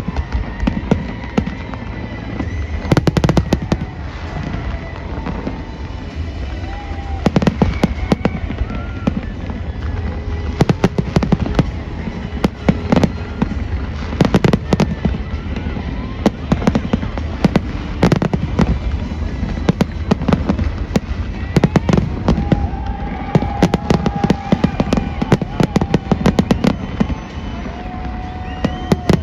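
Fireworks display: bursts of sharp bangs and crackling in dense clusters, over a continuous low rumble.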